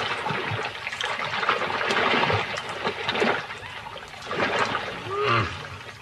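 Muddy water splashing and sloshing in surges as crocodiles thrash in a shallow pool, with a short animal call about five seconds in.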